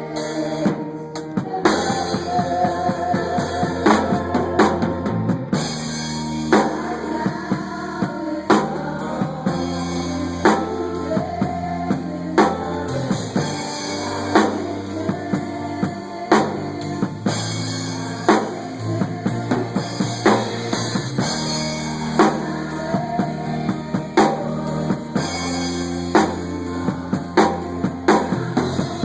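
Music with a drum kit over a sustained bass line and held pitched notes. A strong hit lands about every two seconds, with lighter drum strokes in between.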